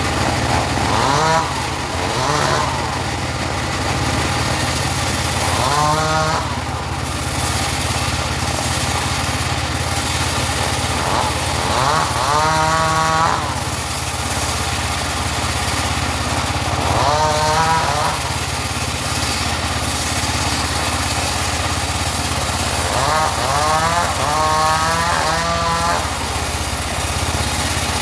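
Engine-driven portable sawmill running steadily while sawing teak, with a whine that rises and falls in pitch several times.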